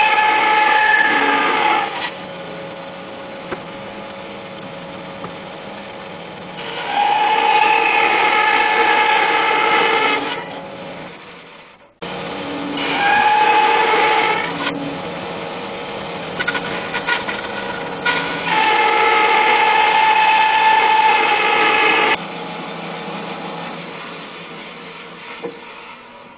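Bandsaw cutting a thick sycamore block. The saw runs steadily and rises to a louder whine four times as the blade works through the wood, running quieter between cuts. The sound breaks off abruptly once near the middle and trails off at the end.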